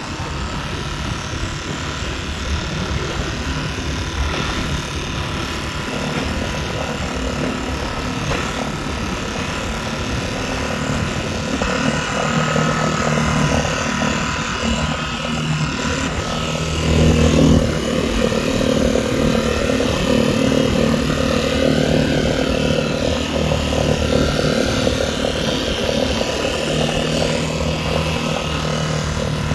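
Tohatsu 3.5 hp outboard motor running steadily at raised throttle, driving a small inflatable boat through waves. The engine gets a little louder a bit over halfway through.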